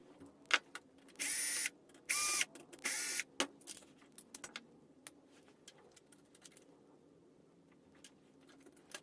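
Dismantling a plastic electronic toy by hand: three short, harsh scraping noises in the first three seconds or so, then scattered light clicks and taps of plastic parts and screws being handled.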